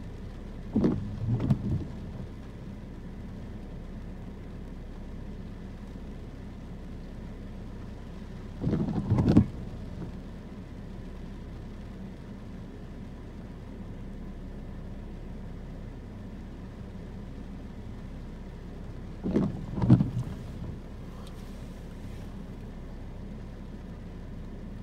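Steady low hum inside a stopped car, with rain on the windows. Three times a short double burst of noise rises over it, each about a second long with two peaks.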